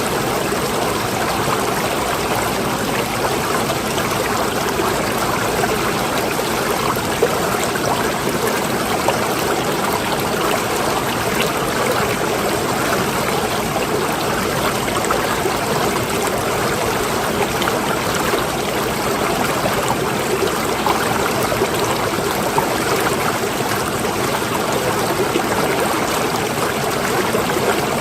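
Steady rush of moving water, an even noise that holds level throughout, with a few small splashy ticks.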